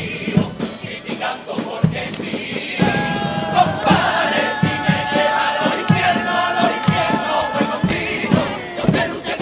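Carnival comparsa's male choir singing a pasodoble in harmony to guitar and drum accompaniment. The voices come in strongly about three seconds in, with drum beats underneath throughout.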